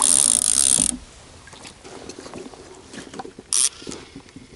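Baitcasting reel's clicker buzzing as a fish pulls line off the spool, the bite alarm of a catfish taking the bait; it cuts off abruptly about a second in. Faint clicks of the reel being handled follow.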